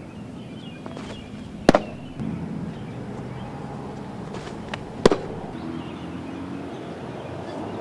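A baseball popping into a catcher's leather mitt twice, about three and a half seconds apart: each fastball is a single sharp pop.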